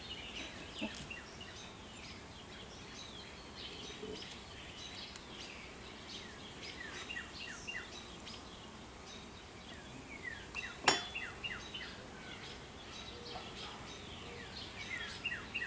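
Small birds chirping on and off, many short, quick, downward-sliding calls, with one sharp click about eleven seconds in.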